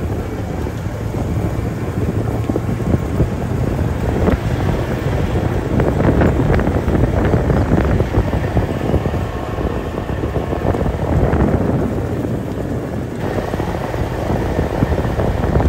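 Wind rumbling on the microphone of a camera carried at a run across grass, with an uneven thud and rustle from the running.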